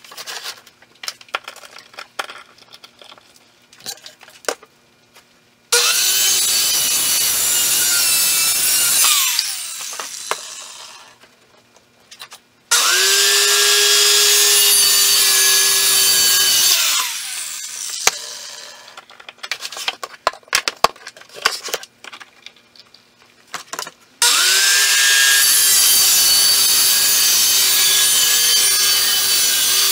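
Corded circular saw cutting plywood in three runs. Each time the motor spins up with a rising whine, holds a steady pitch through the cut, then winds down. Between the runs come knocks and clicks of the board being handled, and the last run is still going at the end.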